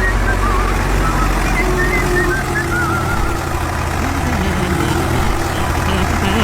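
Steady low engine rumble of a heavy machine such as a mini bulldozer or crane, with short, wavering high chirps over it.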